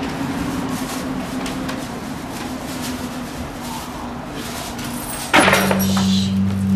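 A steady low background hum with faint clicks. About five seconds in, film soundtrack music starts suddenly and loudly, on held low notes.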